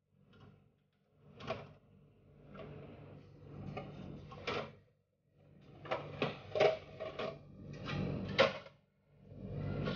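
Kitchen clatter: a run of knocks, bumps and rustles, like things being handled and set down on a counter. A low hum sits underneath, and the sound breaks off briefly twice.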